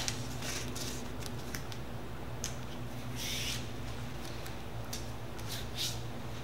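A label strip being pressed and smoothed by hand onto a steel anvil face: a handful of short, soft crinkles and rubs, over a steady low hum.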